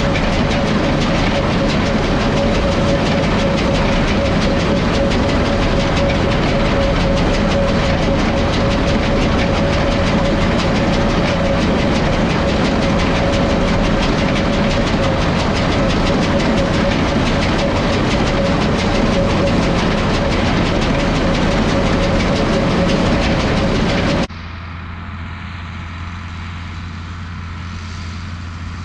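International 1066 tractor's turbo diesel six running under load while pulling a New Holland 853 round baler, with a steady whine over a dense mechanical rattle from the baler. About 24 seconds in it cuts off abruptly to a quieter, steady engine hum.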